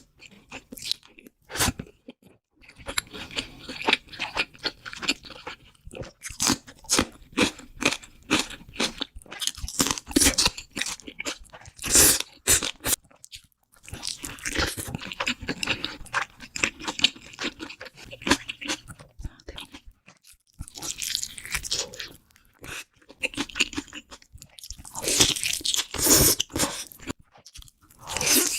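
Close-miked crunching and chewing of crisp food in a mukbang: sharp crackly bites and chews in bursts, separated by a few short pauses.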